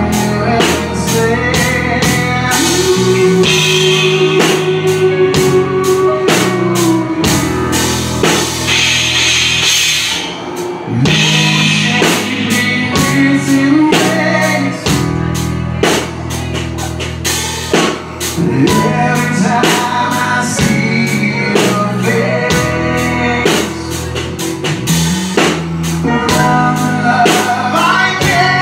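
Live rock band playing: electric guitar, bass guitar and drum kit, with a male lead vocal singing over them.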